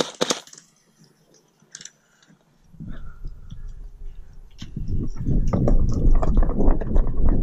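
A few short clicks, then near quiet, then low rumbling and rustling noise with scattered clicks from a body-worn camera moving over dry grass. It starts about three seconds in and grows louder from about halfway.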